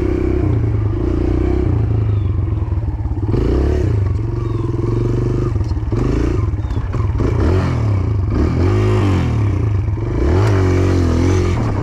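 Kawasaki KLX140R dirt bike's single-cylinder four-stroke engine being ridden and revved for wheelie attempts. The throttle is opened and shut repeatedly, so the engine note rises and falls several times.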